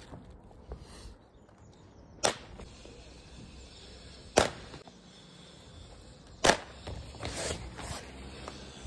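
Three sharp, loud cracks about two seconds apart: fixings being driven into the roof during membrane and batten work.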